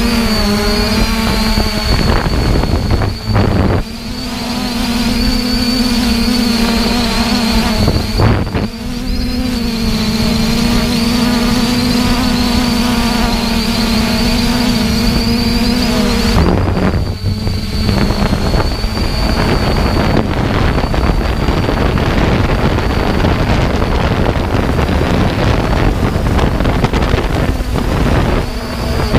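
3DR Iris+ quadcopter's electric motors and propellers buzzing at close range: a steady hum with a high whine above it, the pitch shifting early on as it manoeuvres. From about halfway the tone fades and rushing wind on the microphone takes over.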